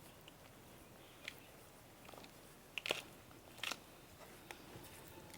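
A few faint, scattered crunches and snaps of dry plant matter being handled, the loudest a little before the middle and about two thirds in.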